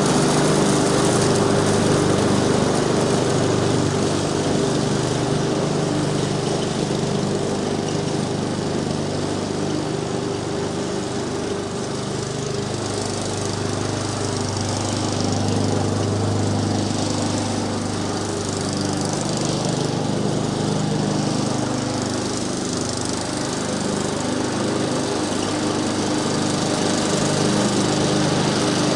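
Gasoline walk-behind push mower's engine running steadily while cutting grass, its level rising and falling a little as it moves across the lawn and coming up again near the end as it heads back.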